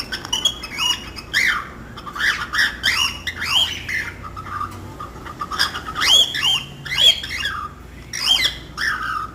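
Baby cockatiel chick calling: a rapid series of short, arching chirps in uneven clusters, with brief pauses about five and eight seconds in.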